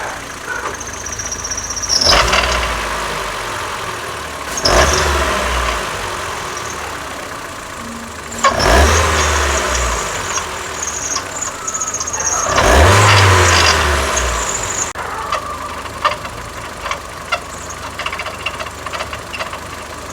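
Ford EcoSport's Sigma engine running and revved briefly four times, with a loud rattling, chirping noise that sounds like an internal engine fault. The noise comes from a worn water pump with play in its pulley.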